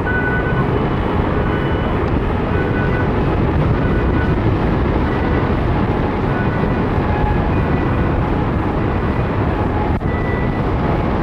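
Steady wind noise on the microphone of a hang glider in flight, a loud, even rush of airflow. Faint short high beeps come and go over it.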